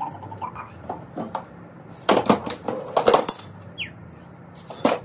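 Metal tools and engine parts clinking and clattering as they are handled and set down, with a cluster of loud sharp clanks about two seconds in and one more near the end.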